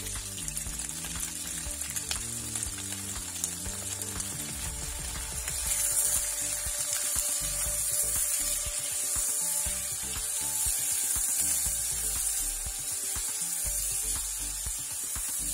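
Chicken pieces and onion sizzling in hot oil in a non-stick frying pan, the sizzle growing louder about six seconds in as a spatula turns the chicken, with the spatula scraping on the pan.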